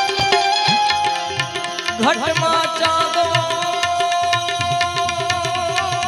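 Indian folk devotional music, instrumental passage: hand cymbals (manjira) clicking in a steady rhythm over drum beats. About two seconds in, a lead melody slides up into a long held note that wavers near the end.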